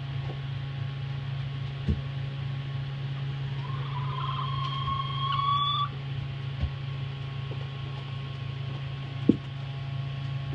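Hen in a nest box giving one drawn-out, slightly rising call while laying an egg, over a steady low hum. A few soft knocks, the sharpest near the end.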